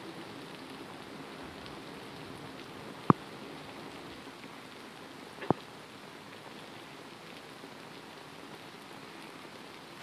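Steady rain falling, heard as an even hiss, with two sharp knocks, about three and five and a half seconds in.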